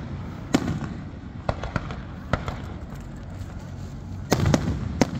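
Fireworks going off: irregular sharp bangs, a few seconds apart at first, then several in quick succession near the end.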